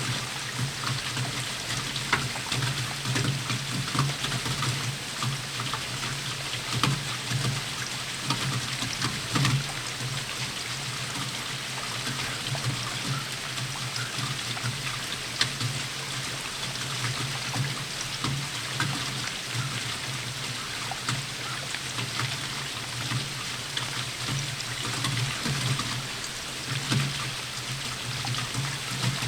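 Steady rainfall with many close drops ticking and water trickling and pouring, over a steady low hum.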